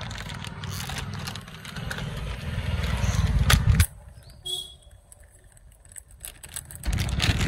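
Plastic packaging crinkling and rustling as a part is unwrapped by hand, over a loud low rumble that cuts out abruptly about four seconds in, leaving only faint crinkles before the rumble returns near the end.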